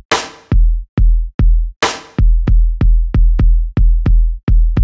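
ODD Ball drum-machine ball playing electronic drum samples as it is struck by hand: a run of bass drum hits, about three a second. Two harder hits trigger a snare, one at the start and one just under two seconds in.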